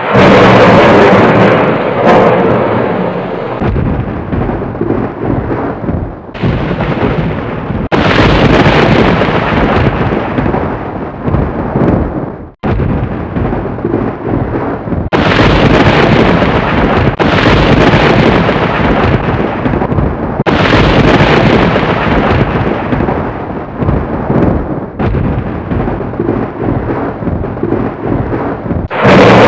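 Loud thunder rumbling and cracking, in a string of short stretches that start and stop abruptly every few seconds.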